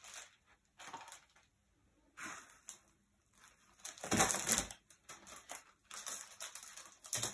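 Packaging being handled: the clear plastic wrapping on a folder crinkles as it is lifted out of foam packing, in several short rustling bursts, loudest about four seconds in.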